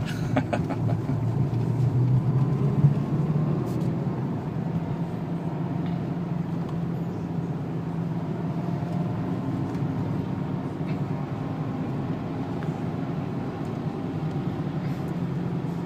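Renault 2.0-litre turbo diesel engine running under steady load, heard inside the car's cabin with tyre and road noise on a wet track. The engine note rises about three seconds in, then holds steady.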